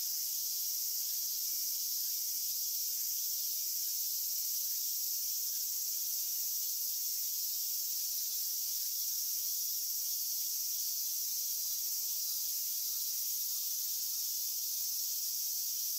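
A steady, high-pitched chorus of insects chirring without a break.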